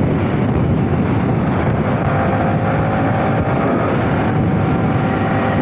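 Motorcycle engine and exhaust running steadily while riding, mixed with heavy wind rush on a lavalier mic inside a helmet with the visor open.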